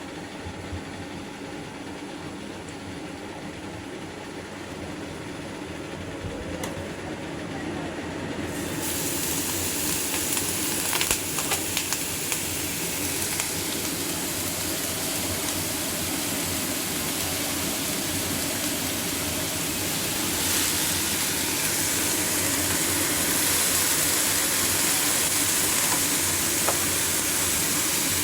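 Food sizzling in a hot wok: the sizzle starts suddenly about a third of the way in and grows louder, with a few sharp clicks soon after.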